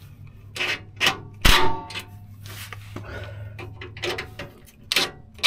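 Metal clanks and scraping of tools working the last bolts on the Hummer H3's underbody skid plate, with several sharp knocks, the loudest about a second and a half in ringing briefly.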